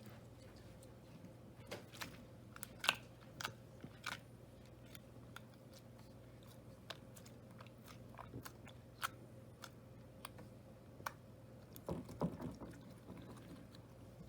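Slime being squeezed and poked by hand, giving scattered small sticky clicks and pops, with a denser run of squishing crackles about 12 seconds in.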